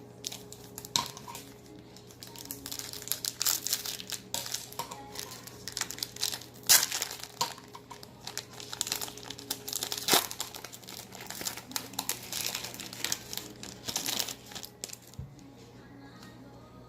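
Wrapper of a football trading-card pack being torn open and crinkled by hand. It crackles in irregular bursts, with a couple of louder sharp snaps midway.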